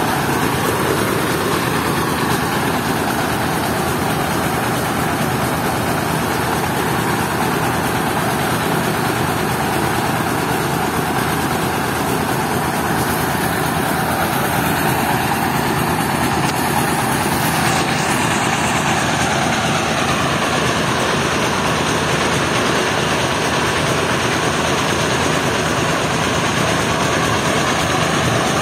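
Mobile rice mill running steadily: the diesel engine that drives it and the hulling and polishing machinery give one loud, even running noise.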